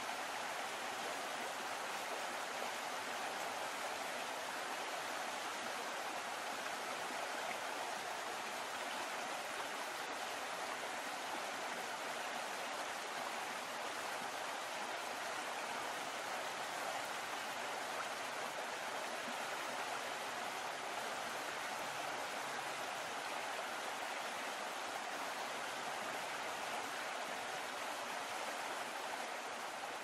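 River water rushing and splashing in the wake of a moving boat: a steady, even wash that holds the same level throughout.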